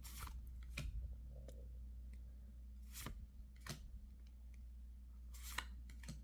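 Pokémon trading cards being flipped through by hand: a handful of short snaps and swishes as cards slide off the stack, about five over several seconds, over a low steady hum.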